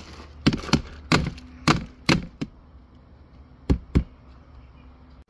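A plastic tub knocked several times, mostly in quick pairs, to shake worm compost out of it into a plastic worm bin.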